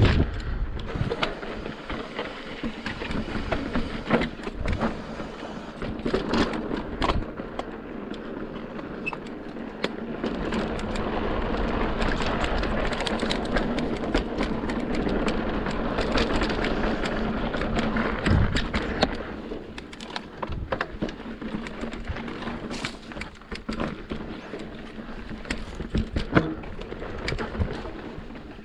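Mountain bike rolling over rough rock: tyre rumble with many rattles and clicks, and wind on the microphone. The noise is louder and steadier in the middle stretch.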